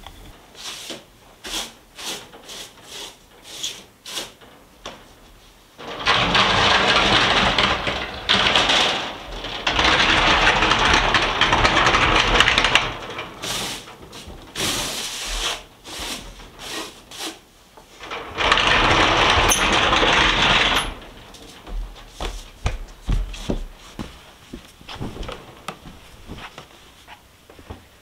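Straw broom sweeping a wooden floor: light scattered taps and brushing strokes, broken by three loud spells of rushing, scraping noise, each two to three seconds long, about six, ten and eighteen seconds in.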